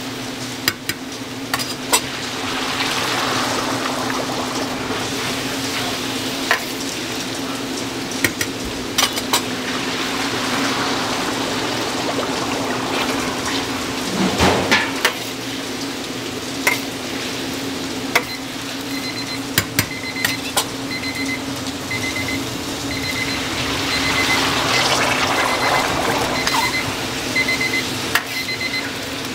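Sweet potato balls deep-frying in a pan of oil, with a steady hiss that swells twice and metal utensils clinking and knocking against the pan. About two-thirds of the way through, an electronic beeper starts sounding short, evenly repeated beeps.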